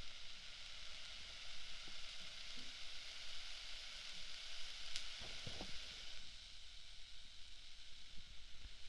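Close-up sizzling hiss of an ear candle burning by the ear, swelling in the middle, with a sharp click about five seconds in and a few soft low knocks just after.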